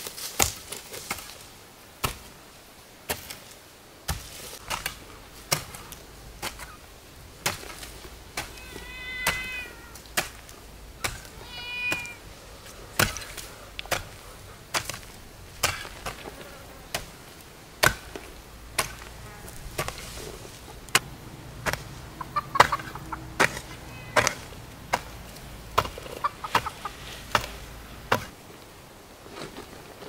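A hoe chopping into soil over and over, about one strike a second. A cat meows twice partway through.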